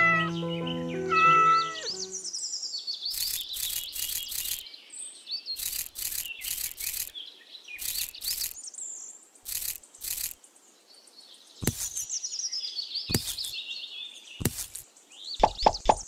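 Birds chirping, over a series of small, sharp clicks as mung beans are dropped by hand onto the sand and plastic rim. Music fades out in the first two seconds, and a fast, even run of clicks starts just before the end.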